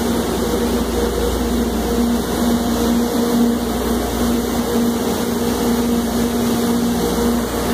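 Steady machinery drone with a constant low hum, unchanging throughout.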